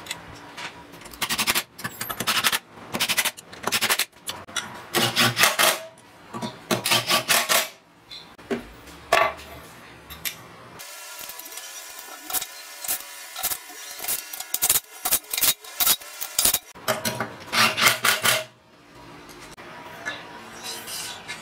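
Aluminium rail pieces being slid, scraped and knocked into place on a steel plate, in irregular metal scrapes and clacks. Midway there is a stretch of quick, thinner ticking over steady ringing tones, whose source is unclear.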